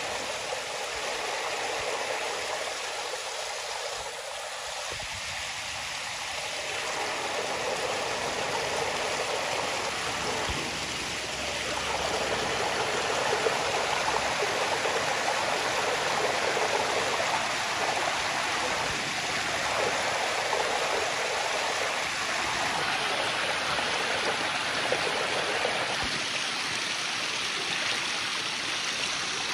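Shallow rocky stream running over and between stones, a steady rush of water that grows a little louder about ten seconds in.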